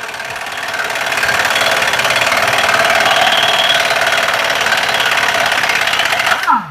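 Impact wrench hammering steadily on a tie rod end nut for several seconds, then winding down with a falling whine near the end as the trigger is released.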